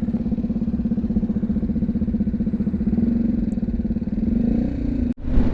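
BMW G310GS's single-cylinder engine running at a steady cruise, its pulsing note rising slightly near the end. The sound drops out completely for a split second just before the end.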